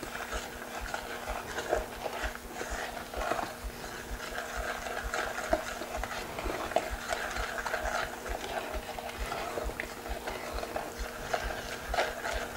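Wooden spoon stirring a wet flour-and-salt playdough mixture in a stainless steel saucepan, scraping through the batter and knocking against the sides of the pot in quick, irregular taps. A faint steady hum runs underneath.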